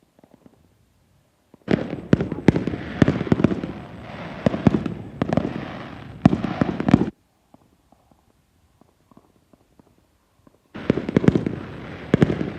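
Fireworks display: rapid bangs over a steady crackle. The bangs break off suddenly about seven seconds in and start again near the end.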